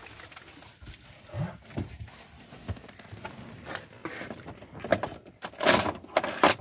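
Hand-held camera being moved and handled: fabric rustling against the microphone with scattered small knocks and clicks, and a louder rustle near the end.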